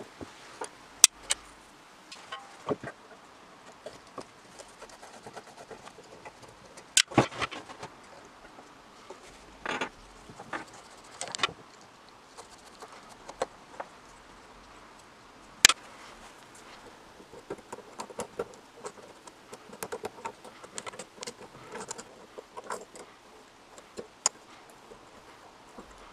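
Screwdriver and small hand tools clicking, tapping and scraping against the metal parts of a Millers Falls No. 118 breast drill as it is taken apart; irregular small metallic clicks with a few louder knocks.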